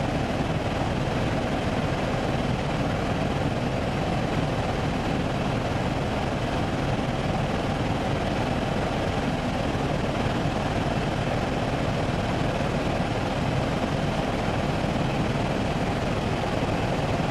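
Helicopter in flight heard from inside the cabin: a steady drone of engine and rotor that does not change in level.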